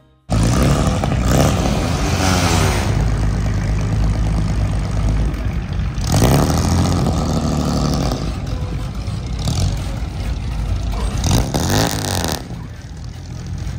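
Car engines running as cars drive past one after another, the sound swelling and falling with each pass about two, six and eleven seconds in. The sound cuts in suddenly at the start and drops off somewhat near the end.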